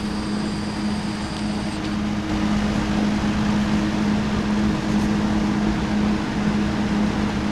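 Old Sears 20-inch two-speed box fan with metal blades running steadily on high: a strong rush of air over a low motor hum. A faint high whine is heard over it for about the first two seconds.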